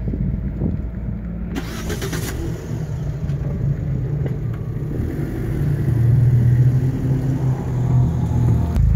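Car engines running close by: a steady low engine note that grows louder from about six seconds in, with a brief rush of noise about two seconds in.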